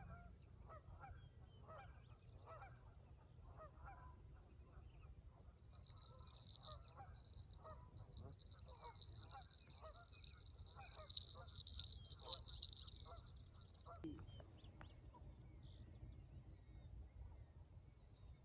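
Geese honking over and over, faint, about two or three calls a second, thinning out after about 14 s. A thin high whine and a few sharp clicks join in midway, with a low rumble underneath.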